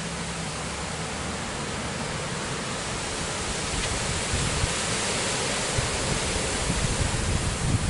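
Strong wind blowing across the microphone: a steady rushing hiss with low, uneven buffeting that grows gustier in the second half.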